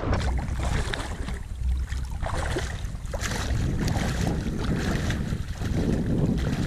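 Wind buffeting the microphone in a steady low rumble, with water sloshing and splashing as a hunter wades through knee-deep marsh water.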